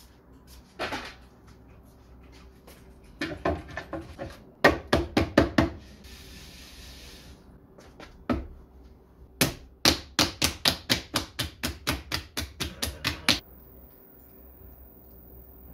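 Hands slapping and patting a lump of clay down onto a pottery wheel bat: two runs of quick, sharp slaps, about four or five a second, the second run longer.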